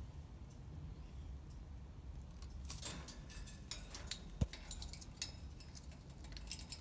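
Faint scattered clicks and light rattles around a parrot cage's metal bars and hanging plastic toys, with one dull bump about four and a half seconds in.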